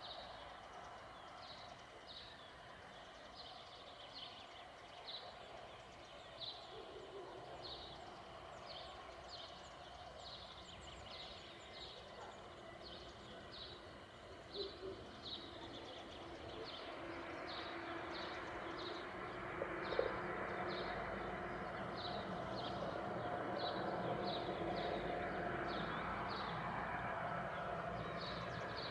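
Outdoor ambience with a small animal, a bird or insect, giving a short high chirp over and over at an even pace, about one and a half times a second. About halfway through, a broad rushing noise with a low steady hum swells up under it and stays.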